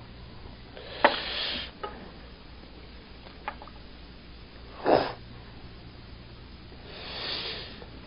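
A man breathing and sniffing close to a microphone during a pause in speaking: a lip click and breath about a second in, a short sharp sniff near the middle, and a soft breath out near the end, over a faint steady low hum.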